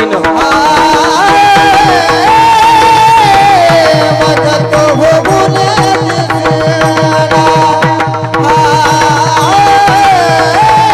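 Devotional kirtan music in raga Bhairavi: an ornamented sung melody over a steady drone, with a hand drum keeping an even beat.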